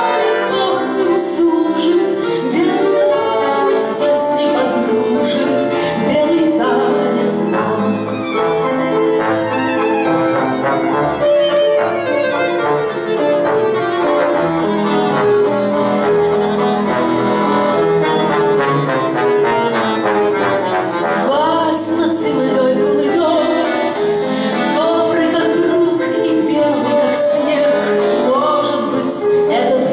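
Live band music with accordion and piano playing an instrumental passage, and a woman's singing voice coming back in near the end.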